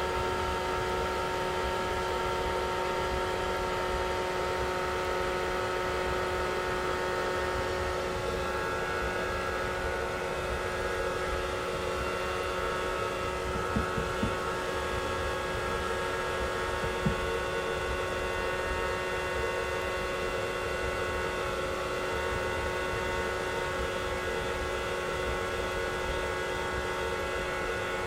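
Hairdryer running steadily: a constant motor whine of several held tones over a rushing air noise. A few soft low knocks come about halfway through.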